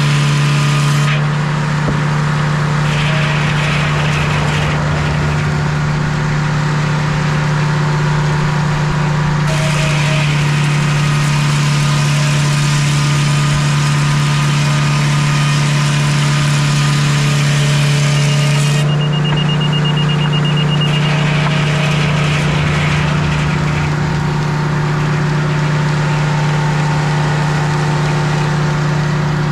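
Sawmill engine running loud and steady while a maple log is sawn, with a higher hiss over it that drops away and comes back a few times.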